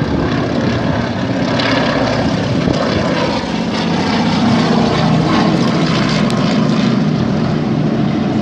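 Junkers Ju 52 trimotor's three radial engines droning as it flies low overhead, propellers beating, getting slightly louder through the pass.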